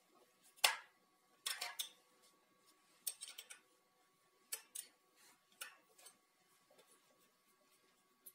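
Light metallic clicks and ticks from a tool working the cover screws of an electric water pump as they are unscrewed. The clicks come in short irregular clusters, the loudest about half a second in, growing fainter toward the end.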